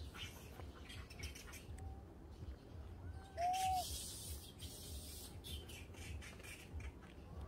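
Faint rustling and small clicks of a young monkey handling and biting into a piece of fruit on dry leaves, loudest for about a second halfway through. One short arched animal call sounds about three and a half seconds in.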